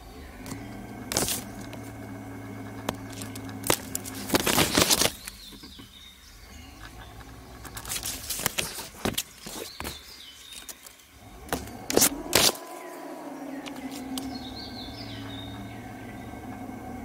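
Cable camera rig running along a wire with a steady low hum, broken several times by loud rustling and clattering as leaves and branches brush against the camera. A few bird chirps come in near the end.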